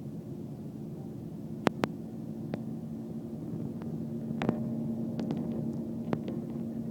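Steady low hum of an airliner heard from inside the cabin, with a few scattered light clicks.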